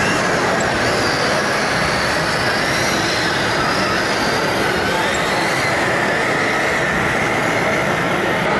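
Whine of radio-controlled model trucks' electric drive motors and gearboxes, wavering slowly up and down in pitch over a steady dense noise.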